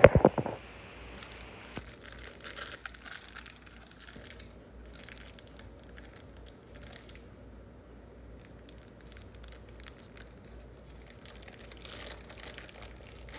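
A plastic packet of crumb-topping mix being handled and torn open, crinkling in scattered bursts.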